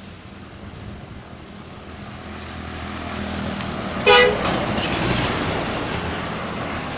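A bus approaching and passing, its engine and road noise building over a few seconds, with one short, loud horn toot about four seconds in.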